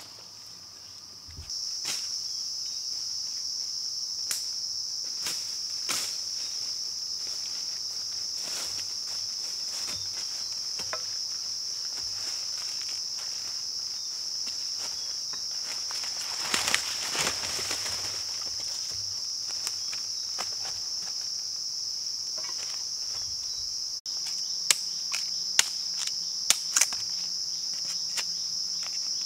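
Steady, high-pitched insect chorus, with scattered sharp knocks and rustles from a machete cutting and handling bamboo shoots, several close together near the end.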